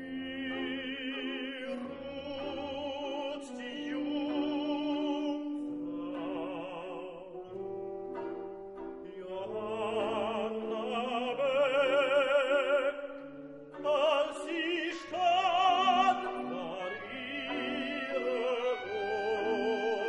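Classical music: operatic singing with a wide vibrato over orchestral accompaniment, starting at once and swelling louder past the middle.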